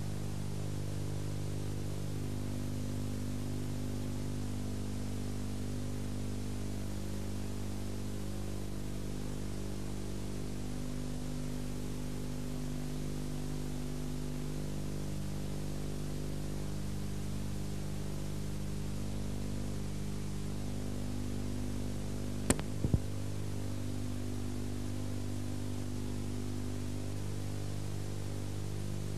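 Steady electrical hum with its overtones under a constant hiss, the noise floor of an old videotape transfer with no live sound. Two sharp clicks come close together about three-quarters of the way through.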